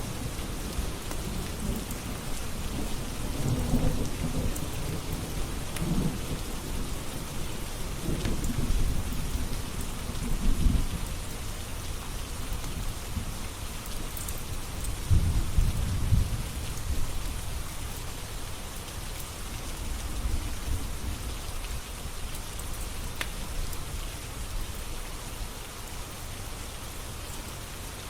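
Steady rain with rolls of thunder rumbling low through the first half or so, loudest around the middle, then easing off to rain alone, with a few faint crackles.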